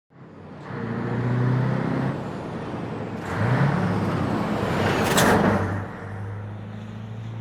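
A motor vehicle's engine running, its pitch lifting briefly about three and a half seconds in, with a short sharp hiss just after five seconds.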